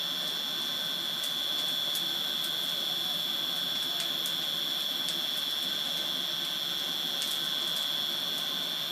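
Forge blower running steadily, blowing air through the fire with a constant high whine, with faint scattered crackles.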